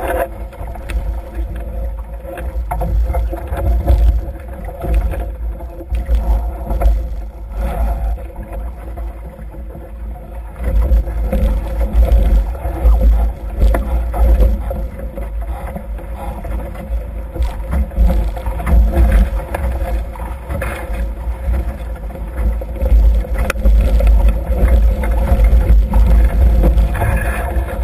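Wind buffeting the microphone of a camera mounted on a Nacra F18 catamaran sailing fast under spinnaker, with water rushing past the hulls and a steady hum underneath. The rumble surges and drops irregularly and grows louder from about eleven seconds in.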